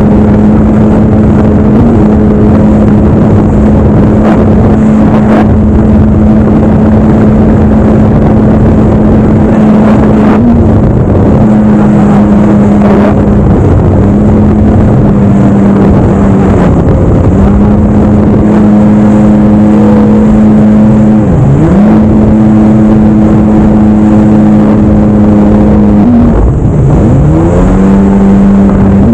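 Jet ski engine running at speed, holding a steady high note over the dense rush of wind and spray. Near the end the pitch dips and climbs back twice as the throttle is eased and reopened.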